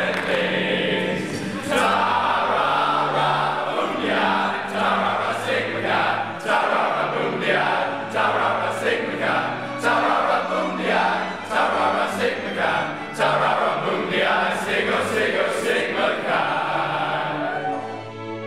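Choral singing in long held notes that change about every second or two, with a short sharp accent every so often.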